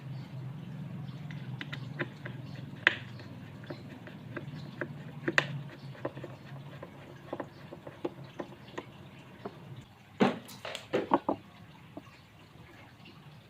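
Light knocks and clicks of wooden parts and tools being handled, with a cluster of louder knocks about ten seconds in. A faint low hum underneath fades out about halfway.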